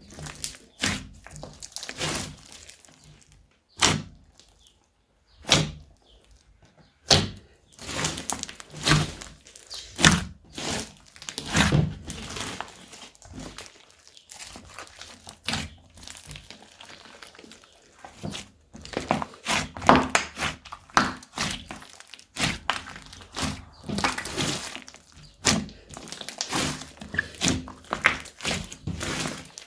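Slime being squished, folded and mixed by hand, giving irregular sharp clicks and pops, sparse for a few seconds then coming thick and fast.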